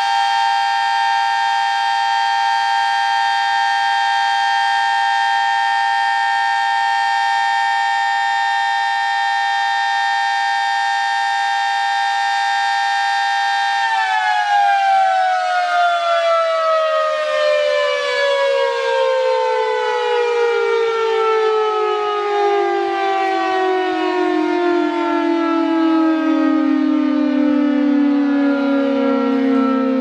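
B&M 20-AR-10 dual-rotor air raid siren sounding a loud, steady two-tone chord at full speed. About fourteen seconds in, it shuts off and winds down, its tones gliding slowly lower.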